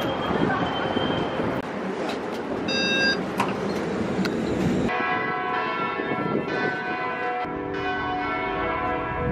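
Street traffic noise, then from about halfway in, bells ringing in many sustained overlapping tones.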